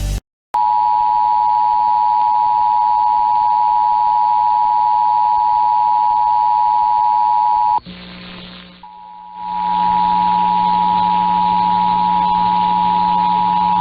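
Emergency Alert System two-tone attention signal: two steady pitches sounded together in a harsh, loud tone. It cuts out about eight seconds in and comes back about a second later with a low hum under it, the attention signal ahead of the next flash flood warning.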